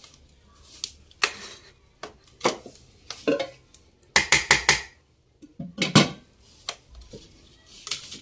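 Metal serving spoon knocking and scraping against a large aluminium cooking pot, with the pot's lid clattering: a string of separate clinks, with a quick run of ringing strikes about four seconds in and another loud knock about two seconds later.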